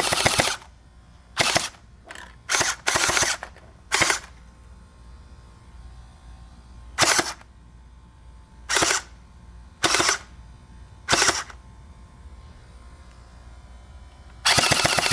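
Gel blaster firing. A long rapid burst ends about half a second in, then eight short bursts follow at uneven gaps of one to three seconds, and another long rapid burst starts near the end.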